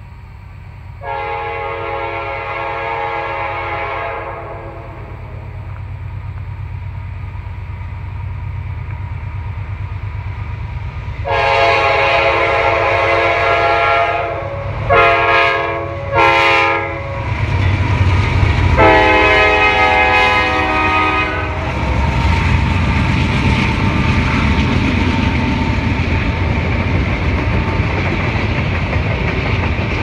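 Freight diesel locomotive's multi-tone air horn sounding five blasts as the train approaches: a long one about a second in, another long one around eleven seconds, two short ones, and a final long one. Under it the diesel engines rumble louder as the locomotives draw near and pass, then the double-stack intermodal cars roll by with a steady rumble and wheel clatter.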